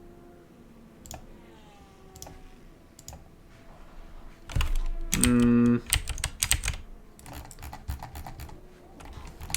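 Computer keyboard typing and mouse clicks, scattered at first and then in a quick run after the middle, with a short hummed voice sound about five seconds in.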